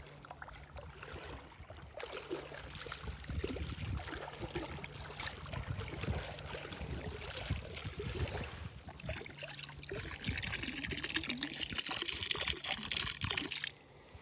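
Water trickling and splashing in small irregular spatters, growing into a louder steady hiss for a few seconds that cuts off suddenly near the end.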